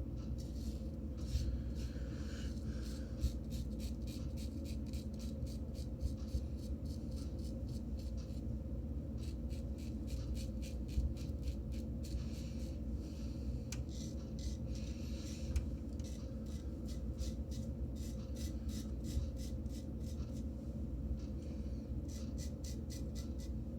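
Razor scraping through lathered stubble in quick, short strokes that come in bursts, over a low steady hum.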